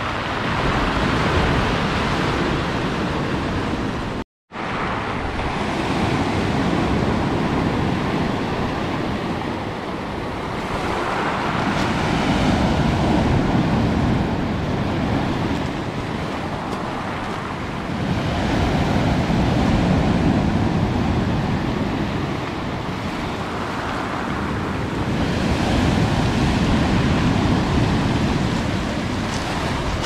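Sea surf breaking and washing foam over a pebble beach. It swells and ebbs in waves about every six or seven seconds, with a brief drop to silence about four seconds in.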